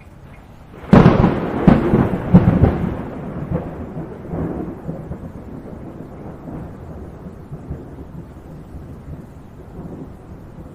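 A thunderclap breaks about a second in, cracks several times over the next two seconds, then rumbles away slowly. Rain hisses steadily underneath.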